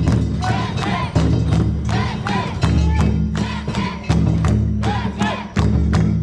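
Kunchi festival float music: rapid, evenly spaced metallic strikes, about four or five a second, over a steady low tone, with crowd voices.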